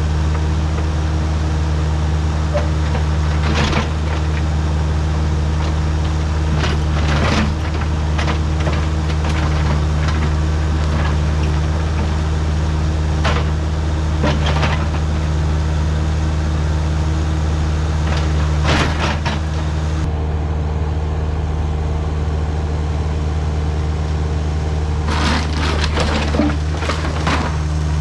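A heavy machine's diesel engine running steadily, with scattered knocks and cracks of wooden debris being broken and moved, the loudest cluster near the end.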